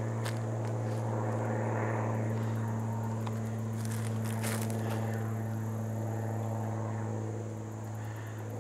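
Propeller airplane flying over, its engine a steady hum that eases off slightly near the end.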